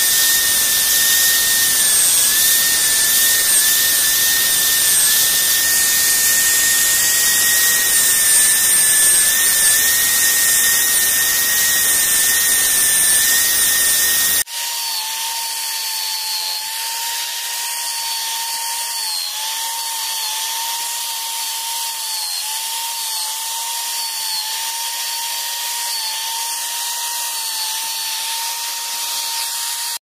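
Electric power tool motor running steadily with a high whine. About halfway through it cuts off suddenly and a lower-pitched, quieter whine takes over.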